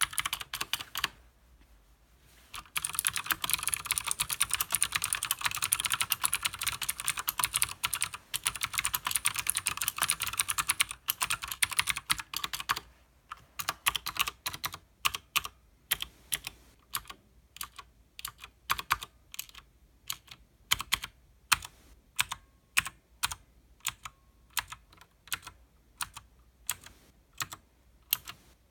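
Leopold FC900R mechanical keyboard with clicky Cherry MX Blue switches and PBT keycaps being typed on: after a brief pause near the start, a run of fast continuous typing, then slower, separate keystrokes from about halfway on.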